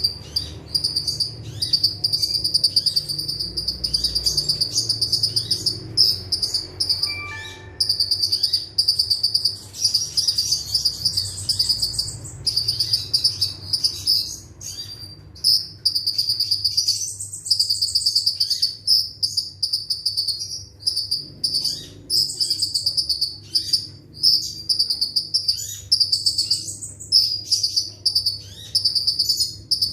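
Kolibri ninja sunbird singing its rapid, dense 'nembak' song: fast high-pitched chirps and trills in quick runs broken by short pauses.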